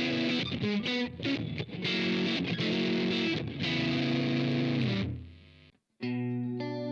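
Distorted electric guitar played through a Blackstar AMPED 2 pedal amp set to its EL84 tube response: quick, choppy notes, then held chords that die away about five seconds in. After a brief silence a new, cleaner sustained chord starts near the end.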